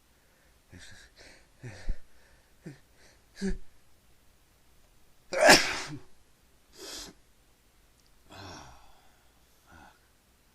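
A man's sneeze, brought on by pepper in his nose: a few short catching in-breaths build up, then one loud, sharp sneeze about halfway through, followed by a couple of quieter sniffs and breaths.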